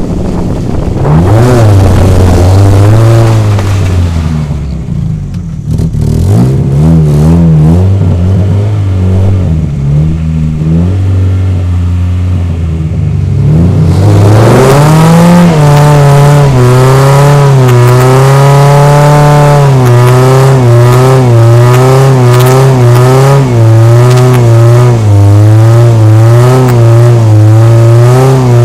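Rally car engine heard from the bonnet, revving up and down as the car pulls away and runs at lower revs for a while; about 14 s in it goes to hard driving, loud, the revs swinging quickly up and down through the bends.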